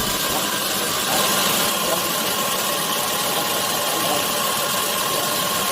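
Sawmill machinery running steadily: an even mechanical noise with a hum that grows stronger about a second in.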